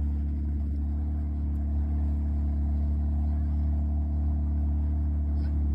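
Steady low drone of a vehicle's engine and drivetrain while driving off-road.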